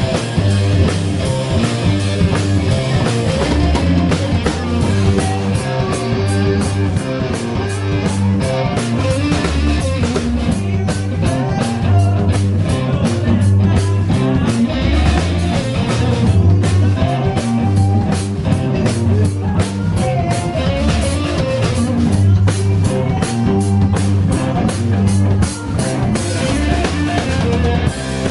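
Live blues-rock band playing loud: electric guitars over a drum kit keeping a steady beat.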